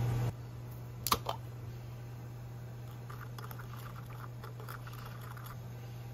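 A wooden spoon clicking against a small ceramic bowl. There are a couple of sharp taps about a second in, then a run of light quick ticks as sauce is stirred in the bowl. A steady low hum runs underneath.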